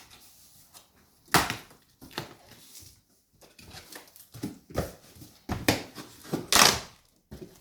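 Cardboard shipping box being opened and handled: a series of scraping, crinkling noises, the loudest near the end.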